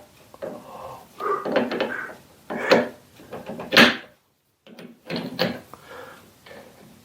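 Metal clicks and scraping of a jaw being worked into its slot in a 5-inch 3-jaw lathe chuck, with a few sharp clinks, the loudest near the middle.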